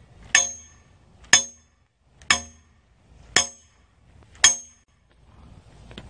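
Hammer blows on a steel stake being driven into the ground: five ringing metallic clangs about a second apart.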